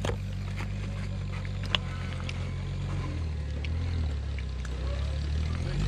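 Rock-crawler buggy's engine running at low revs as it creeps over boulders, its pitch shifting past the middle, with a few sharp clicks and knocks, the loudest about two seconds in.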